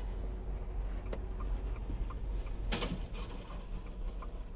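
Low rumble inside a car pulling away from a stop, with a run of light ticks starting about a second in and one louder brief noise just before the three-second mark.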